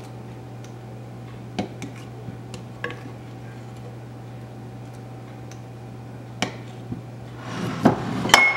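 A metal spoon tapping and scraping against a glass mixing bowl and a metal cakelet pan as batter is scooped: a few light clicks, then a louder scrape and two sharp clinks near the end, the last one ringing briefly. A steady low hum runs underneath.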